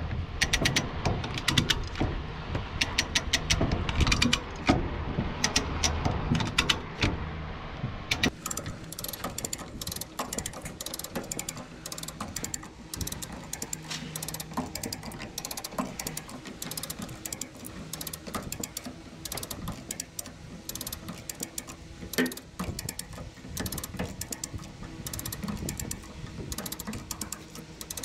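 Rapid metallic clicking and clanking from a dent-pulling tool hooked to a rod in a truck cab's dented door pillar, as the bent metal is worked out. The knocks are heavier and louder for the first eight seconds or so, then turn into sharper, lighter clicks.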